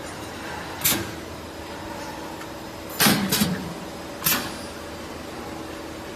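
Pneumatic spot welding machine working: short sharp bursts of its air-driven stroke, one about a second in, a close pair about two seconds later and another a second after that, over a steady machine hum.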